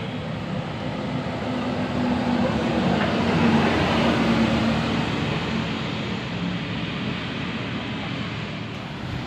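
A large bus's engine running as the bus passes close by, growing louder to a peak a few seconds in and then fading, with a steady low drone throughout.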